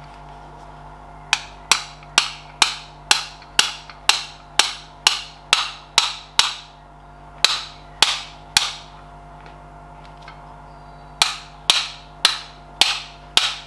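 Ball-pein hammer driving a steel roll pin into the gear knob of a Ferguson TED20 gear lever: sharp ringing taps about two a second, in three runs with short pauses between.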